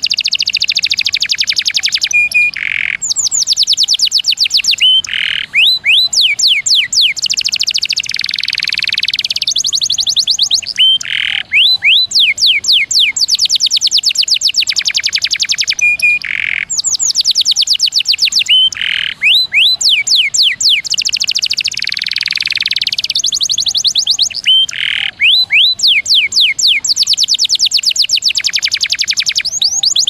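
Domestic canary singing long rolls: rapid trills of high, quickly repeated descending notes, broken by buzzy stretches and short pauses. The same sequence of phrases comes round again about every eight seconds.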